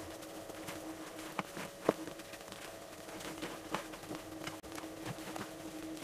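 Spatula folding whipped egg whites into a chocolate sponge batter in a glass bowl: soft wet scraping with a few light taps of the spatula against the glass, over a faint steady hum.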